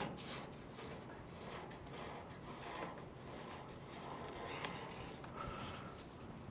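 Faint, scratchy strokes of a Sharpie marker drawn along the edge of a paper template on a truck door's metal lip, repeated several times.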